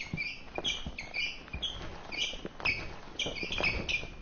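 Sneakers squeaking on a hard hallway floor as a crowd of students walks, with short high squeaks several times a second over shuffling footsteps.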